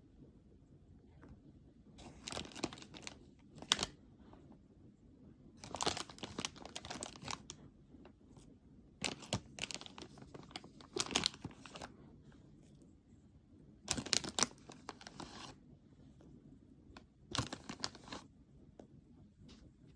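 Packaging being handled and unwrapped: short bursts of crinkling and tearing, about six of them with quiet gaps between.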